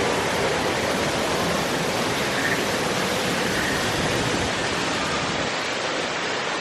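Steady, even rushing noise outdoors, with faint voices far off.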